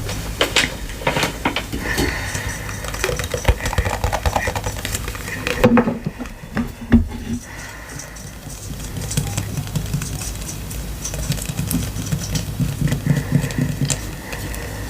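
Sticky slime being squished and worked by hand: dense, irregular wet clicks and crackles, thinning out for a couple of seconds in the middle, over a steady low hum.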